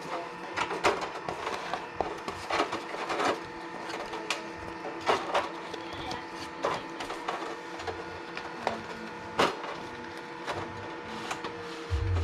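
Small objects being picked up, shuffled and set down on a desk: irregular clicks and knocks, a few louder ones about a second in, around three seconds in and near nine and a half seconds, over a faint steady hum.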